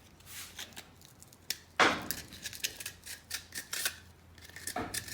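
Small ticks and scrapes of hand tools cutting and working a craft piece, with a louder knock about two seconds in and another near the end.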